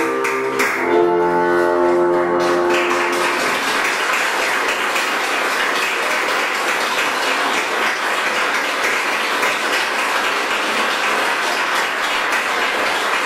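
The closing notes of a piano and bassoon arrangement die away about two to three seconds in. Audience applause then follows and continues steadily.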